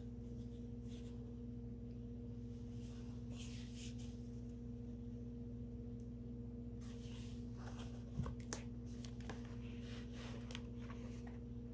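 A steady low electrical hum, with faint rustles and a few light taps as a hardcover book is turned over and opened by hand.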